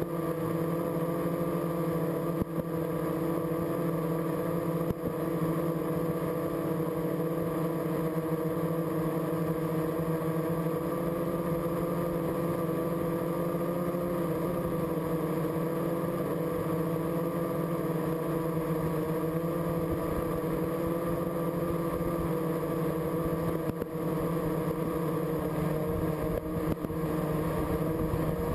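Drone's electric motors and propellers running with a steady, even hum while it hovers, the pitch shifting slightly about halfway through.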